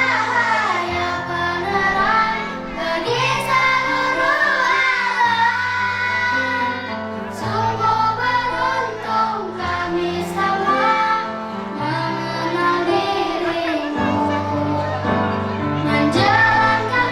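A children's choir singing an Indonesian sholawat, a devotional song praising the Prophet Muhammad, over steady low accompanying notes that change in steps.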